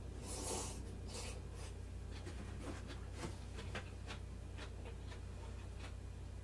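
A person eating: a short noisy slurp from a soup bowl about half a second in, then chewing with a scatter of small clicks and taps from chopsticks and tableware.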